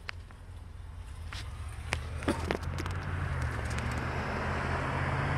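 A vehicle driving past, its engine rumble and tyre noise growing steadily louder. Several sharp clicks and knocks from the phone being handled come in the first half.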